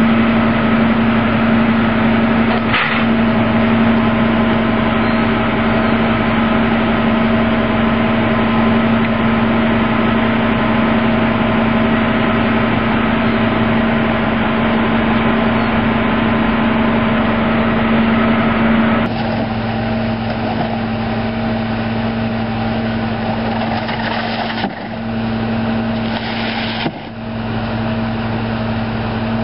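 Rear-loading garbage truck with a Leach 2R-II packer body, its engine running steadily with a steady droning hum. The sound turns duller about two-thirds of the way through.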